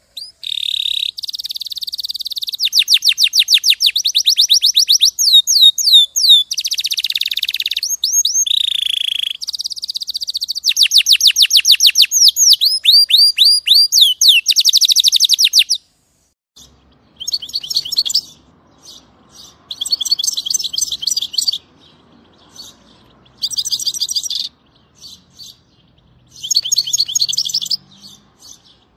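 A songbird singing: fast trills and quick runs of repeated high notes, then, about 16 seconds in, shorter bursts of song separated by pauses over a faint background hiss.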